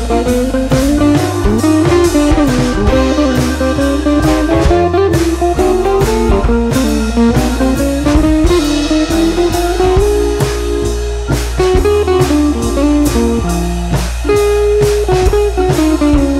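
Background music: a blues-rock track with a lead guitar playing a melody over bass and a steady drum beat.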